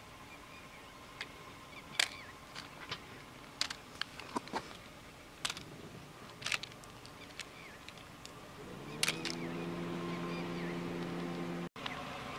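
Scattered sharp clicks and knocks of hard plastic toy cars being handled and set down on asphalt. About nine seconds in, a car engine starts and settles into a steady idle.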